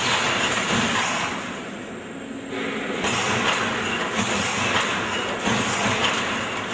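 High-speed wire mesh welding machine running: a loud, continuous mechanical clatter with a repeating beat as its welding heads cycle. It drops briefly quieter about a second and a half in, then comes back to full level.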